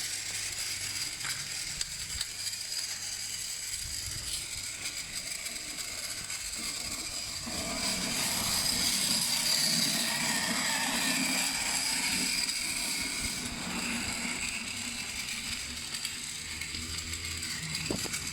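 Battery-powered toy train engine running along toy track, its small motor and gears whirring steadily with the wheels rattling on the rails; it grows somewhat louder for a few seconds in the middle.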